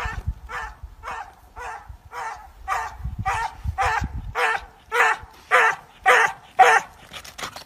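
A small dog barking over and over, about two barks a second, the barks growing louder and stopping near the end.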